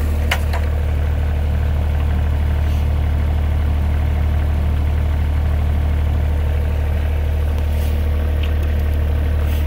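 Cat 302 mini excavator's diesel engine idling steadily, warmed up, with one sharp click just after the start.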